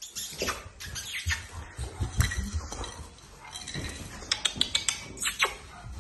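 Dogue de Bordeaux puppy scrambling about on artificial turf: scuffling and knocking, with a quick run of sharp clicks near the end.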